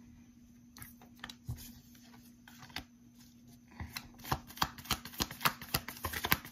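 A deck of tarot cards being shuffled by hand: a few scattered flicks at first, then a quick run of card clicks from about four seconds in.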